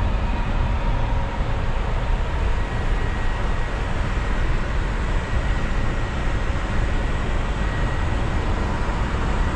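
Steady flight-deck noise of an Airbus A350 in cruise at flight level 400: an even, low rush of air and aircraft machinery with two faint, thin steady tones above it.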